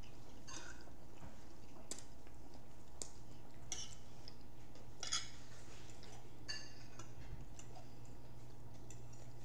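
Forks clicking and scraping on plates and the mouth sounds of chewing: scattered short clicks over a steady low hum.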